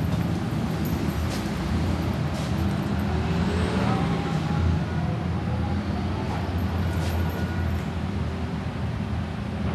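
Steady low background rumble, like distant traffic or machinery, with a few faint light clicks over it.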